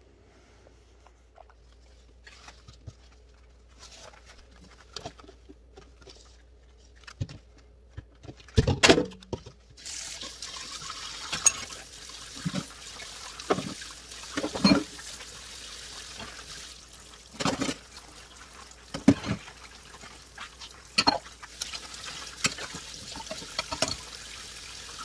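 Kitchen faucet running into a stainless steel sink while dishes are washed by hand: a steady rush of water with repeated knocks and clatters of a steel pot and dishes being handled and scrubbed. The water comes on about ten seconds in, just after a loud knock; before that only faint clicks and taps.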